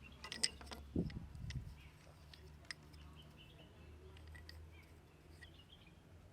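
Hands tapping and slapping on a head during a head massage: a quick run of sharp taps, then a dull thump about a second in, followed by a few faint taps over a low hum.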